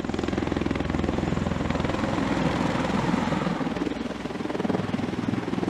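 V-22 Osprey tiltrotor flying in helicopter mode, its two proprotors making a rapid, steady chop over the drone of its engines.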